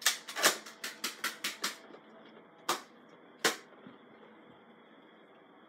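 Sharp plastic clicks from a Nerf blaster's mechanism as it is worked: a quick run of about eight in the first two seconds, then two single clicks.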